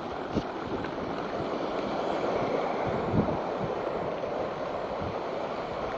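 Heavy rain pouring onto a street in strong wind, a steady rushing hiss that swells a little mid-way, with a few low thumps of wind on the microphone.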